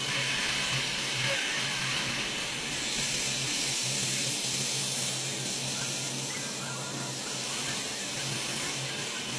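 Robotic paint-spray guns hissing steadily over a car body, over a constant low hum.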